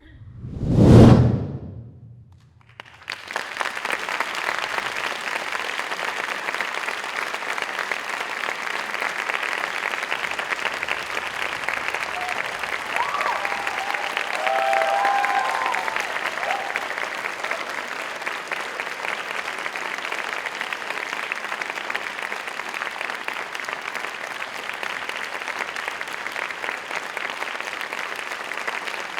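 One loud final hit of the music swells and dies away about a second in, then an audience applauds steadily, with a few brief cheers near the middle.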